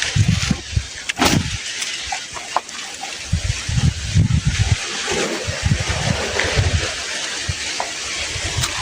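Wind buffeting the microphone in irregular gusts, a low rumble over a steady hiss.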